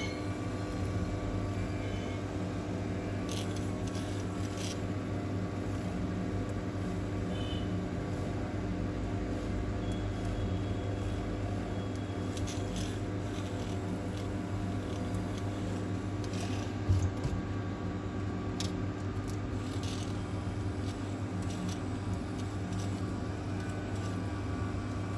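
Steady electrical hum from workshop equipment, with faint scrapes and clicks of a thin steel wire tool being worked under the cracked front glass of a phone to cut it from the display. One louder knock comes once, past the middle.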